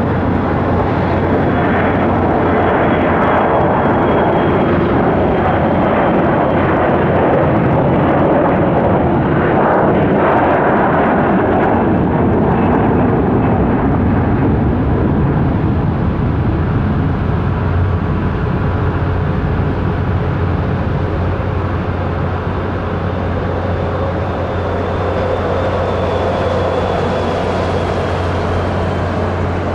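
Boeing 737-400's CFM56 turbofan engines at take-off power: a loud, steady jet roar with a thin high whine, loudest in the first half and easing off a little later on.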